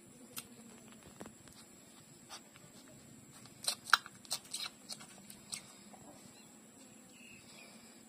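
Puppies suckling at the mother dog's teats: small smacking clicks, a few scattered ones and then a quick cluster of them about four seconds in, over a faint low hum.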